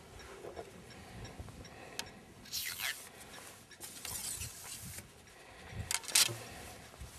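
Wooden ramrod sliding and scraping inside the bore of a Pedersoli Mortimer 12-gauge muzzle-loading shotgun, ramming a wad down the barrel. There are a few rubbing strokes, the loudest about six seconds in.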